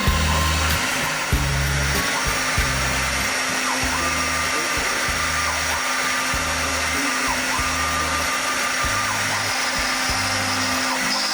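CNC stone milling machine's spindle running steadily as it cuts stone, a continuous whine and hiss. Background music with a pulsing bass line plays over it.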